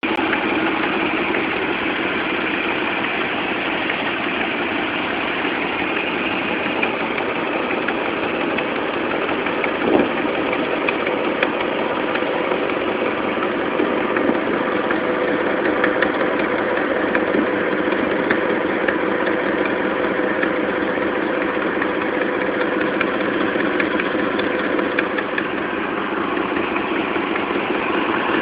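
Dodge Dakota's 4.7-litre V8 idling steadily with a rapid ticking from the right side of the engine, the sign of an exhaust leak at the manifold gaskets and bolts. One sharper click stands out about ten seconds in.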